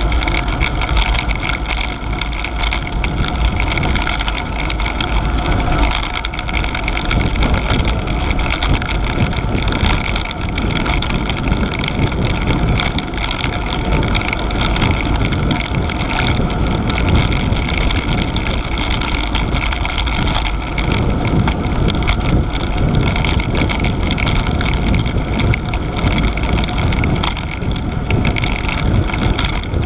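Wind rumbling on an action camera's microphone while riding a road bicycle at speed, with steady road noise from the tyres on tarmac.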